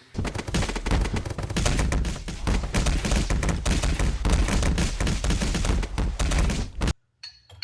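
A dense, rapid clatter of metal tool impacts on the engine-mount bracket bolt, going on without a break for about seven seconds, then cutting off suddenly.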